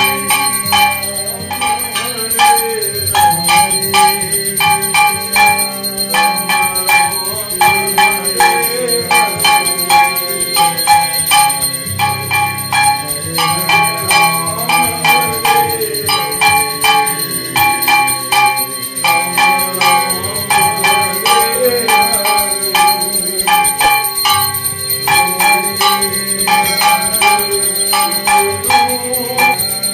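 Brass puja hand bell rung rapidly and continuously during aarti, several strokes a second with a bright ringing, over devotional music.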